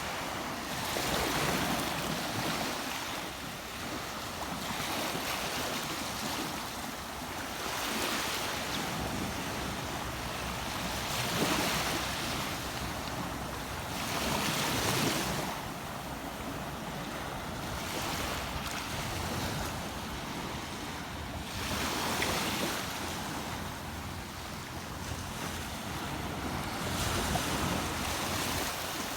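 Water rushing and washing steadily, swelling and easing every few seconds, with some wind on the microphone.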